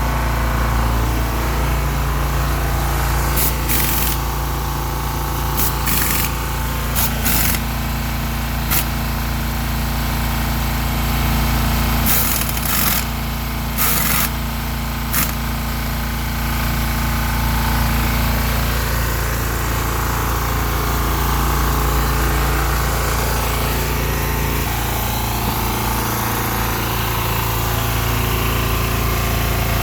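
Toyota 7FBE18 battery-electric forklift running with a steady motor hum. A few sharp knocks or clicks come about three to nine seconds in, and a cluster of them comes around twelve to fifteen seconds.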